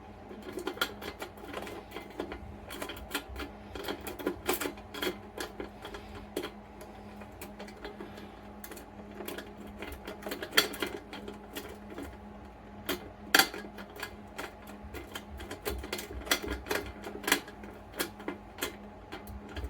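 Metal lock picks scraping and clicking inside the wafer lock of a book safe: irregular rapid ticks and rattles, with a couple of sharper clicks in the second half, over a steady low hum.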